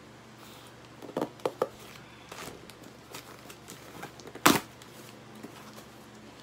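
Scissors snipping a few times and packaging being handled during unboxing, followed by a single sharp knock about four and a half seconds in.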